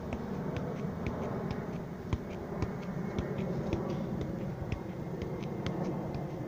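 Soft knocks of a football being touched with the feet, the loudest about two seconds in, over a steady low background rumble, with many short high ticks scattered throughout.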